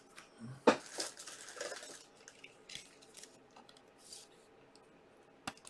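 Faint handling noises: a sharp tap about two-thirds of a second in, light rustling for a second or so after it, and a short click near the end.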